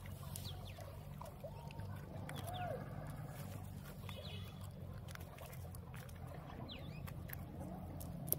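Many short animal calls that rise and fall in pitch, over a steady low hum, with scattered light clicks from hands working a nylon fishing net.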